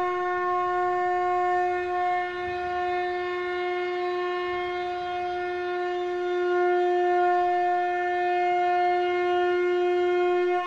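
Conch shell (shankha) being blown: one long, steady, horn-like note.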